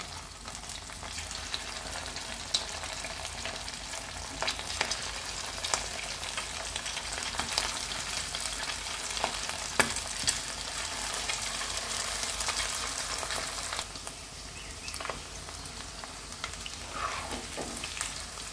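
Battered, marinated chicken pieces deep-frying in medium-hot oil in a kadai: a steady sizzle with scattered sharp pops.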